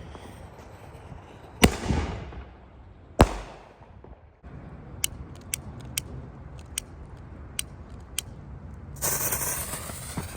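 Two loud bangs from consumer artillery-shell fireworks about a second and a half apart, each followed by an echoing tail. Then a string of six small sharp cracks, and a loud hissing rush near the end.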